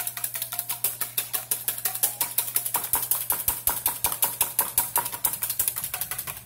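Wire whisk beating eggs in a stainless steel bowl: a fast, steady clatter of the wires striking the metal, several strokes a second.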